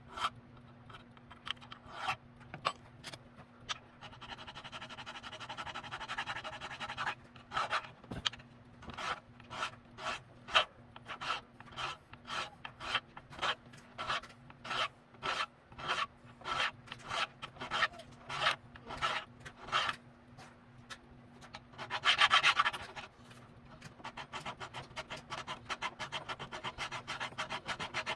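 Hand file rasping back and forth on the grinder to clean it up. The strokes start irregular, settle into a steady rhythm of about one and a half to two strokes a second, then there is one louder, longer scrape followed by quicker, lighter strokes.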